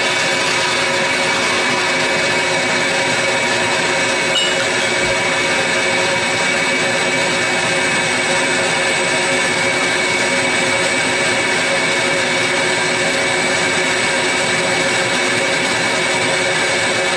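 Table saw ripping a twisted oak board lengthwise, running together with a dust collector and shop fan: a loud, even whining drone that holds steady without a break.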